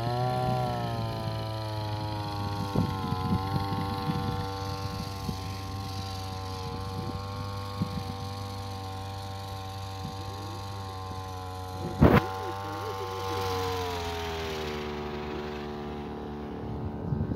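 Husqvarna 325S25 motorised backpack sprayer's small two-stroke engine running steadily at high speed as it pumps the spray, its pitch dropping a little about three-quarters of the way through. One sharp knock about twelve seconds in.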